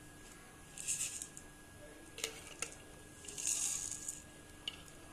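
Dry cumin seeds rattling and hissing against the inside of a stainless-steel mixer-grinder jar in two short showers, with a few light clicks in between.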